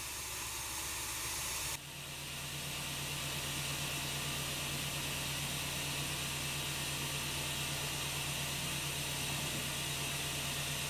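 Steady hiss of compressed air in the Russell snow plow's air system as its reservoirs are pumped back up to pressure, over a steady low hum. About two seconds in the sound changes abruptly, then the hiss swells a little and holds.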